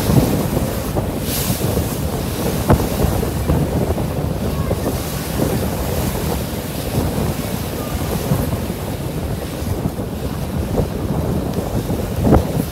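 Wind buffeting the microphone over the steady wash of water past a moving boat. A couple of brief knocks stand out, one about three seconds in and one near the end.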